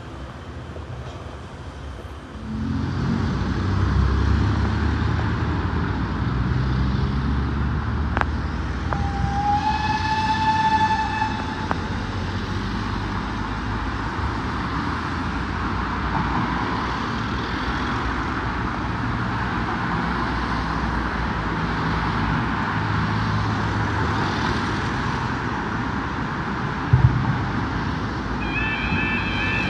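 Road traffic rumbling over a level crossing beneath a concrete road bridge. About ten seconds in a horn sounds once for about two seconds. Near the end the crossing's warbling alarm starts as its warning sequence begins.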